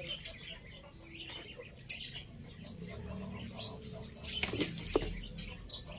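Thin, dry split-bamboo slats clacking and scraping against each other as they are handled and sorted. The sounds come as scattered short clicks, with a quicker cluster about four and a half seconds in.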